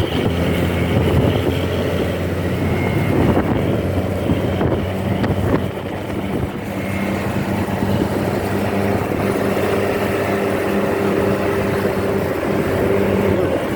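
Motor vehicle under way on a road: engine running steadily with road and wind noise, and a steady higher hum joining in about two-thirds of the way through.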